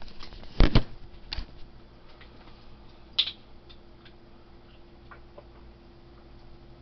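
A camera being put down on a kitchen counter: two quick knocks less than a second in, then a lighter knock. A single sharp click follows about three seconds in, then a faint steady hum.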